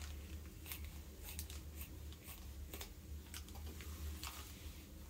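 Scissors cutting through a folded plastic bag: an irregular string of short, crisp snips with the plastic crackling.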